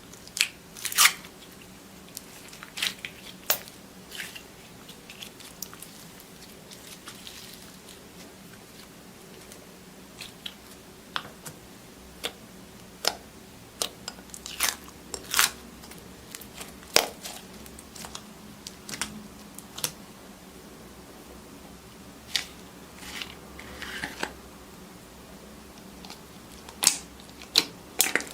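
Slime being pressed and squeezed by hand, giving sharp pops and crackles at irregular intervals over a faint steady low hum.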